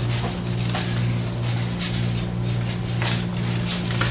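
A steady low hum runs under frequent brief, irregular rustles and light taps, like a board book being handled and waved and small steps on a wooden floor.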